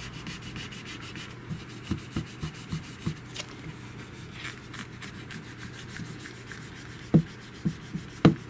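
Rubbing on a phone's freshly fitted screen protector to push out trapped air bubbles. A run of short, dull knocks from the phone being handled gets louder near the end.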